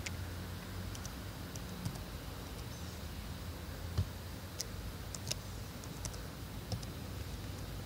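Laptop keyboard keys tapped slowly one at a time, about a dozen scattered clicks, as a terminal command is typed. Under them is a steady low background hum.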